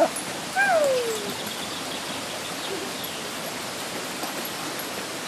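Shallow stream babbling steadily, with one dog's whine sliding down in pitch about half a second in.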